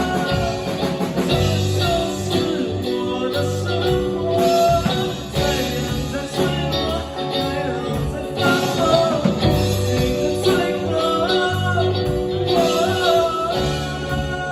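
Rock band playing live: electric guitars, bass guitar and drum kit, with a singer's voice over them.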